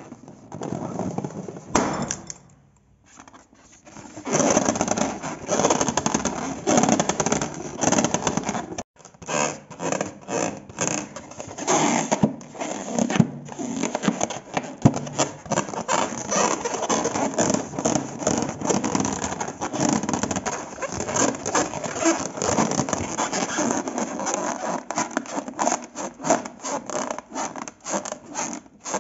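Slime being mixed and squished: a continuous run of rapid, irregular clicks and pops, with a short lull about two to four seconds in and a brief break about nine seconds in.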